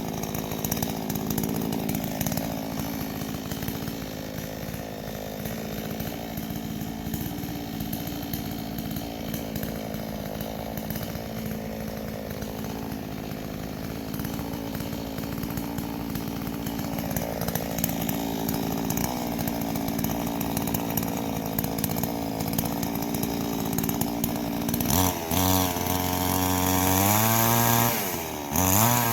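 Two-stroke chainsaw running steadily while trimming knots and bumps off a log. About 25 seconds in, the engine revs up and down repeatedly.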